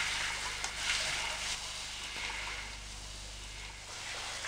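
Shower spray running steadily, a hiss of water falling on skin and tiles that eases a little about three seconds in. A low electrical hum runs underneath.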